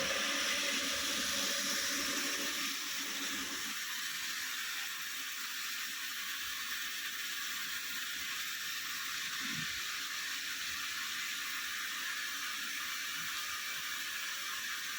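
Water running in a steady, rushing flow.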